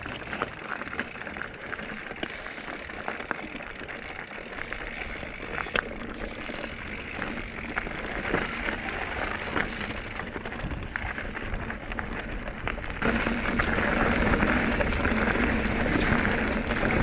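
Mountain bike riding dirt singletrack: tyre and trail noise with scattered clicks and rattles from the bike. The sound gets louder about thirteen seconds in.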